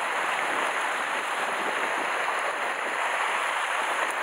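Steady rush of sea surf washing against a rocky shore.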